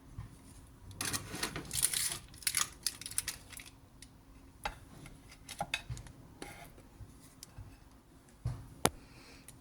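Utensils clicking and scraping against a plate as a piece of steak is served, with a dense run of clatter about a second in and a few separate clicks later.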